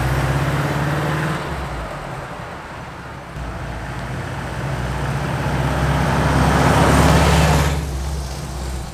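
Volkswagen Vanagon's water-cooled flat-four running through a new Vintage Speed header and muffler as the van drives by. The exhaust note fades as the van moves off, then grows louder as it drives back, is loudest as it passes close about seven seconds in, and falls away after.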